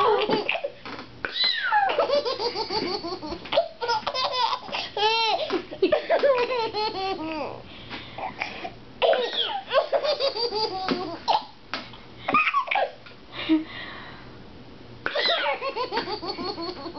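Baby laughing hysterically in long fits of quick giggles, pausing for breath about eight seconds in and again a little before the end.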